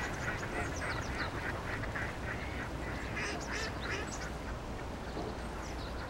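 A flock of ducks, eastern spot-billed ducks among them, calling with many short, overlapping quacks over a steady low background hush.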